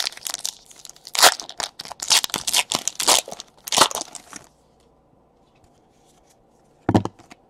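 Panini Select basketball card pack being torn open by hand: a run of crackling, crinkling rips of the wrapper that stops about halfway through. A couple of soft knocks follow near the end.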